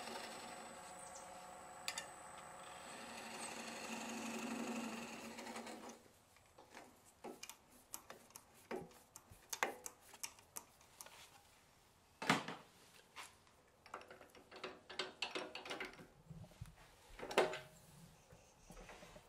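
A wood lathe running while a turning tool cuts the small nub at the foot of an elm bowl, with the cut swelling briefly. About six seconds in, the steady running stops and scattered light knocks and clicks of tool and wood being handled follow.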